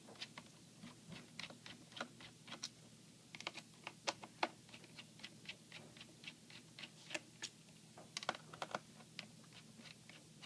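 Faint, irregular small clicks and taps, a few a second, of a small screwdriver working the tiny screws that hold a laptop's hard drive caddy.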